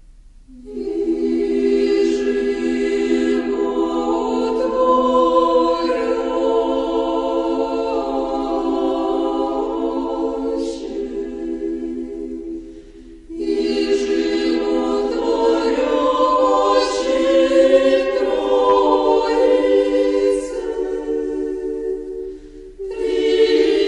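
An a cappella choir singing slow, sustained chords in long phrases, starting just under a second in, with a short break about twelve seconds in and another near the end.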